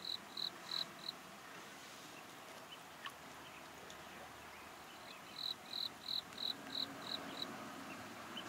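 Insect chirping: short high chirps about three a second, four at the start and a run of about eight from about five seconds in, over a faint steady hiss.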